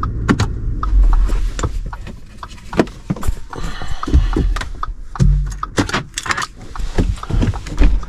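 Irregular clicks and knocks with a few low thumps inside a car cabin, from a hand working the console and door controls and from the camera being handled.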